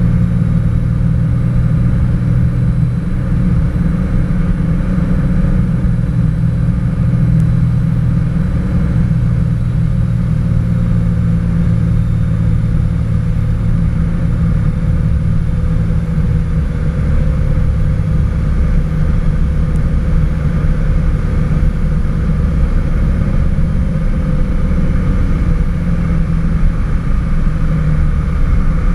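Cessna 206 Stationair's piston engine and propeller running in a steady drone, heard inside the cabin on approach to landing.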